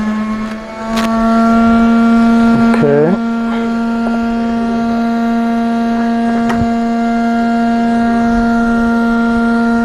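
Hot air rework station blowing, its blower giving a loud, steady humming whine that dips briefly about a second in, while the chip is being heated for desoldering.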